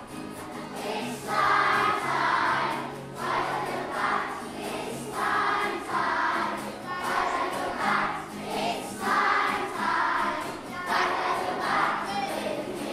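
A choir singing a Halloween song in a minor key over instrumental backing, in short, regularly spaced sung phrases.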